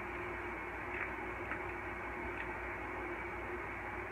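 Steady background hiss and low hum with a few faint, brief clicks.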